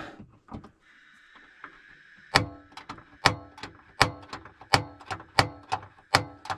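Gas hissing faintly from a camper-van hob burner, then the hob's igniter clicking repeatedly, the loudest clicks about three-quarters of a second apart, as the burner is tried after the gas hose fitting was reconnected.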